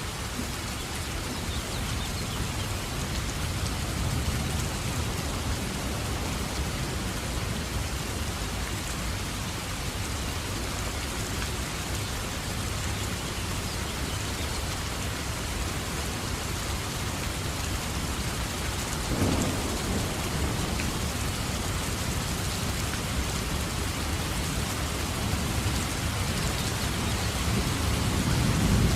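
Steady heavy rain falling, with low rolling thunder rumbling underneath. A sharper thunder crack comes about two-thirds of the way through, and the rumble swells again near the end.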